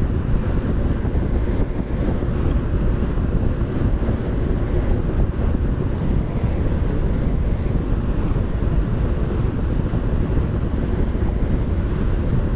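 Steady rushing of air from a large drum fan blowing across the microphone, mostly a low rumble.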